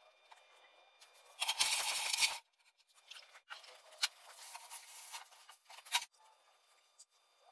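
Loud hiss for about a second that cuts off sharply, typical of an oxy-acetylene torch flame being shut off. Then a few seconds of scraping and rubbing, with two sharp clicks.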